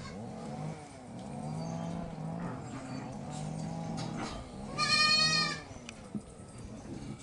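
Puppies growling at play in a low, drawn-out growl, with one sharp high-pitched yelp about five seconds in.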